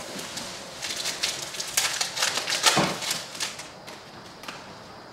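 Foil trading-card pack wrapper being torn open and crinkled, with the cards rustling in hand: a run of irregular crackling from about a second in, dying down near the end.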